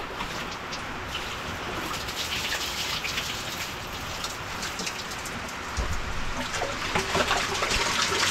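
Water splashing and dripping onto the floor during a dipper bucket bath, an even patter with scattered splashes.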